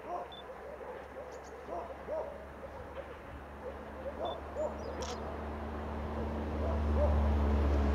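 Low rumble of the 2M62U diesel locomotive's two-stroke diesel engines as it approaches, growing louder from about three seconds in. Short rising-and-falling calls repeat over it, most of them in the first half.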